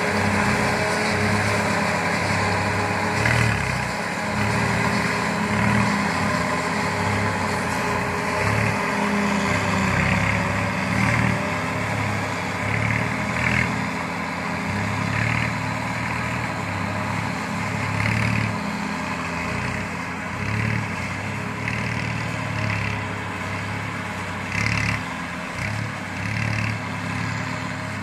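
Tractor engine running steadily under load, driving a Celikel single-row forage harvester as it chops a standing crop for silage, with short irregular surges in the chopping every second or two.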